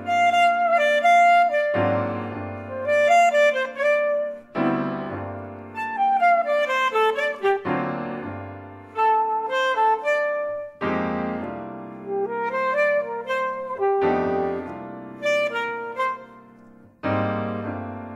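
Alto saxophone and piano playing a chamber jazz piece: the piano strikes chords with low bass notes about every three seconds while the saxophone plays short melodic phrases that move up and down over them.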